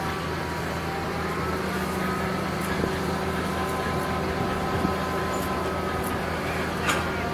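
Boat travel lift's engine running steadily with a whine on top as it lowers a sailboat in slings onto its cradle stands. A single short knock sounds near the end.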